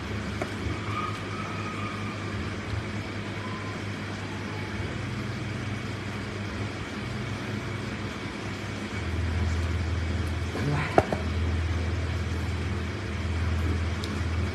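Low, steady rumble of background noise that grows louder in a couple of steps, with one sharp click about eleven seconds in.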